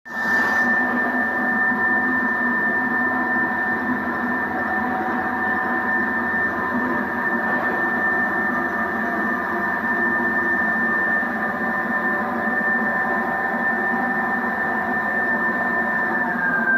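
Marble-cutting machine's electric motor and blade running steadily at full speed, with a constant high-pitched whine.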